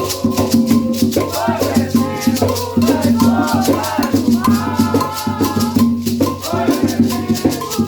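An Umbanda ponto sung by a voice, with a shaker rattle keeping a steady beat.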